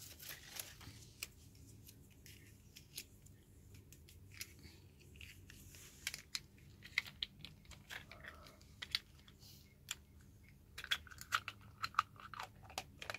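Small plastic toy container being handled and twisted in the hands: faint, irregular clicks and taps of plastic, coming more often near the end.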